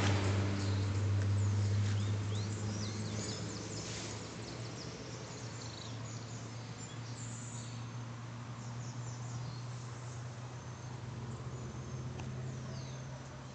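Evening roadside ambience: scattered bird chirps and insects over a steady low hum. A vehicle's sound dies away over the first few seconds.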